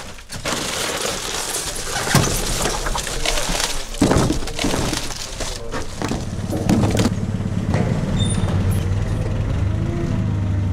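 Chunks of dry ice being scooped out and broken up, crunching and clattering, with a sharp knock about four seconds in. From about two-thirds of the way in, a forklift's motor runs with a steady low hum.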